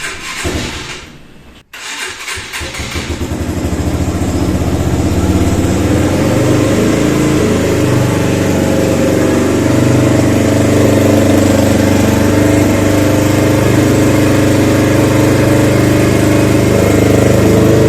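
Yamaha YBR 125G's single-cylinder 125 cc four-stroke engine started cold with the choke pulled: it catches about two seconds in, the sound builds over the next few seconds, and it settles into steady idling as it warms.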